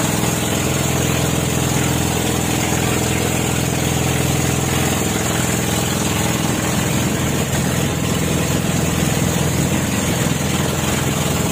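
An engine running steadily at an even speed, with a constant high hiss over it.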